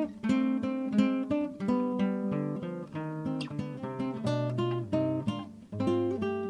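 Instrumental background music of plucked strings: a run of picked notes, several a second, each ringing and dying away, with a brief dip near the end.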